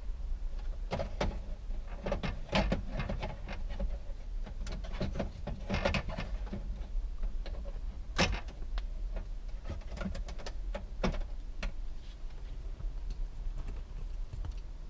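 Plastic wiring-harness connectors and dash parts being handled and fitted: scattered clicks, rattles and rustling, with one sharp click about eight seconds in, over a steady low hum.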